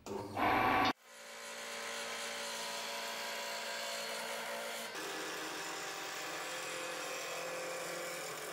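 Wood lathe started up, its motor rising to speed within about a second and then running steadily while a turning chisel cuts a spinning wooden blank. A brief loud noise in the first second stops abruptly just before the lathe spins up.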